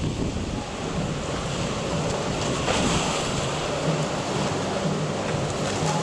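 Rough sea surf breaking steadily, mixed with strong wind buffeting the microphone.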